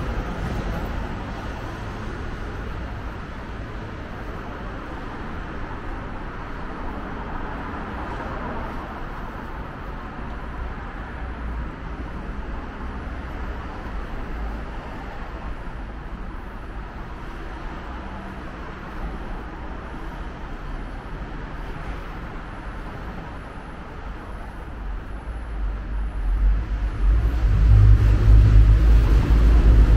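Steady low background hum under an elevated railway viaduct. About 25 seconds in, a deep rumble builds and stays loud to the end, the sound of a train crossing the viaduct overhead.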